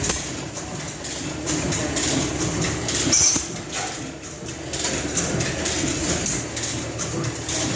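Running old machinery with a steady mechanical clatter of many small knocks, loudest briefly about three seconds in.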